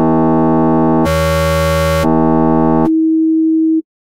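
Digital synthesizer tone from a two-dimensional wavetable oscillator in Max/MSP: jit.peek~ scans a Jitter matrix with phasors at 320 Hz and 240 Hz. A bright tone with many overtones, from the bivariate sine and cosine expressions, changes timbre about a second in and changes back a second later. Near the end it drops to a plain sine wave from the single-sinusoid expression, then cuts off suddenly.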